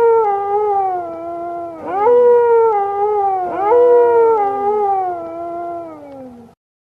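Wolf howling: one long howl already under way, then two more starting about two and three and a half seconds in. Each rises quickly and then slides slowly down in pitch, and the howling stops about six and a half seconds in.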